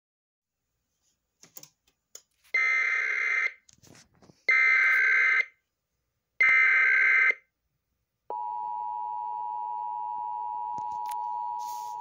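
Sage EAS ENDEC sending an Emergency Alert System Required Monthly Test. After a few faint clicks come the three bursts of the SAME header's digital data, about a second each and a second apart. About a second later the steady two-tone EAS attention signal starts.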